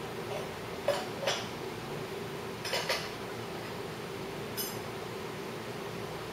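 A handful of sharp, irregularly spaced metal clicks and clinks from hand tools working the cam bearing installer on a Harley Twin Cam 88 engine, over a steady low hum.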